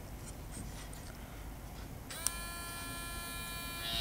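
Beard shaver's small electric motor starting up about two seconds in with a small click, then running with a steady whine. Near the end it gets louder and slightly higher in pitch.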